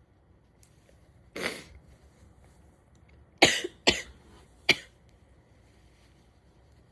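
A person sneezing in a fit: one sneeze, then three sharp sneezes in quick succession about two seconds later.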